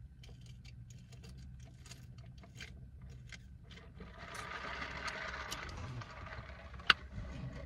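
A cup of Dr Pepper: faint crackling ticks like soda fizz, then about four seconds in a couple of seconds of hissing like a sip through a straw, over a low steady hum. A single sharp click comes near the end.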